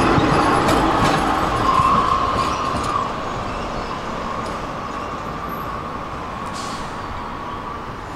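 Tram running on its rails with a high steady whine over the rumble of the wheels, loudest about two seconds in. The running noise drops after about three seconds and carries on more quietly.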